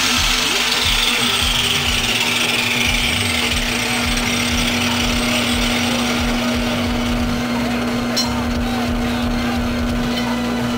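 Electric drill running steadily under load, drilling into the workpiece, with a constant motor hum. A high whine slides down in pitch over the first few seconds.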